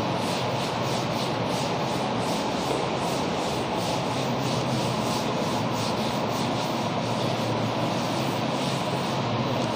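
Chalkboard duster wiping chalk off a blackboard in repeated strokes, heard over a steady background hiss.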